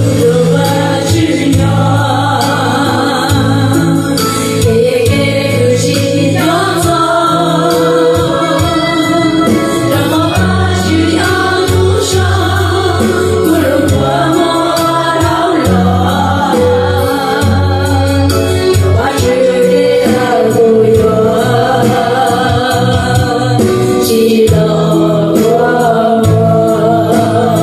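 A group of voices singing a song together, accompanied by music with sustained bass notes.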